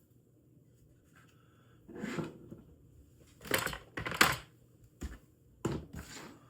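Small model-kit parts handled on a tabletop: a few short clicks and clatters, spaced irregularly, starting about two seconds in.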